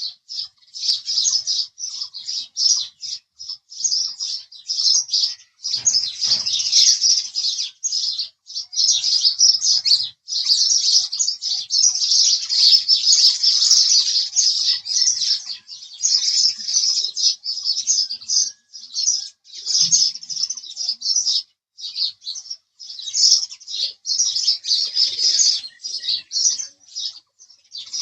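House sparrows chirping: a rapid stream of short, high chirps, many a second, broken by brief pauses and densest in the middle.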